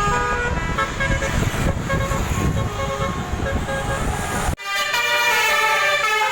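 An Indonesian bus's telolet multi-tone horn playing a stepped, tune-like series of notes over engine rumble. The sound cuts out abruptly about four and a half seconds in, then the horn notes resume with little rumble beneath them.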